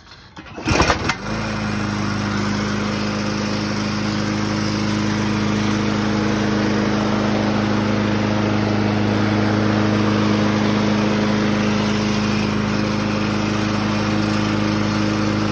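Briggs & Stratton 6.0 hp (190cc) engine on a Scotts by Murray push mower, pull-started with the recoil rope and catching on the first pull about a second in. It then runs steadily at constant speed on its rebuilt replacement carburetor.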